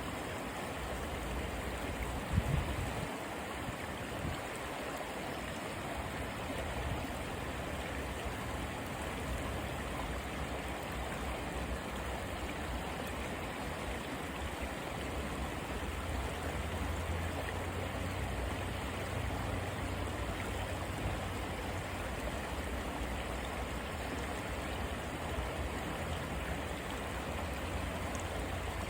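A clear river flowing: a steady rush of running water over its bed. A brief low thump comes a little over two seconds in, and a low rumble beneath the water grows stronger past the halfway point.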